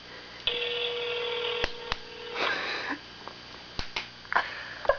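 Ringback tone of an outgoing call heard through a phone's speaker: one steady ring of about a second and a half while the number rings unanswered. A few sharp clicks and a brief rustle fall around it.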